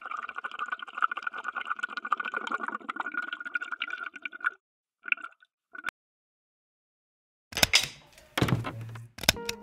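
Water running from a water dispenser's tap into an insulated tumbler for about four and a half seconds, then two brief spurts as the tap is let go. A few knocks and clatter come near the end.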